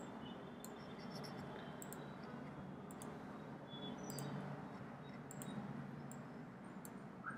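Light, sharp computer clicks, about a dozen, spaced irregularly over a steady low room hum, as files are selected and dragged on screen. A short rising squeak comes near the end.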